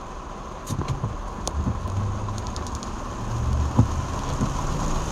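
Heavy rain drumming on a car's roof and windshield, heard from inside the cabin, with a few sharp drop impacts. A low rumble swells from about two seconds in and fades near the end.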